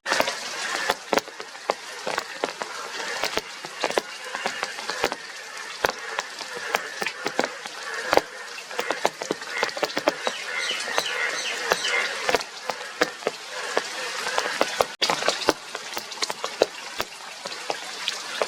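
Chorus of Indian bullfrogs calling, a dense noisy din with many sharp clicks and pops throughout; the sound drops out for an instant about fifteen seconds in.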